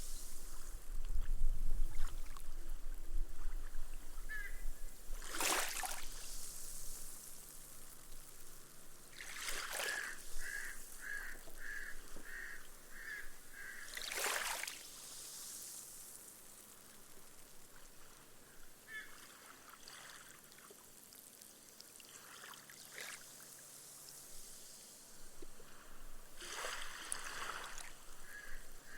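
Gentle small waves on a sandy beach wash up every few seconds, each swell rising to a brief rush. The water then fizzes away as it soaks into the sand. About ten seconds in, a run of short, evenly spaced high calls sounds, roughly two a second.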